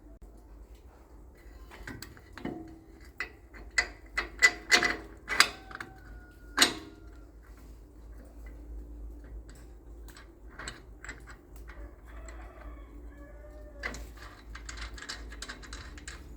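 Metal clinks and knocks of hand tools working on machine parts: a run of sharp, ringing strikes between about two and seven seconds in, then scattered clicks and a quick burst of rapid clicking near the end.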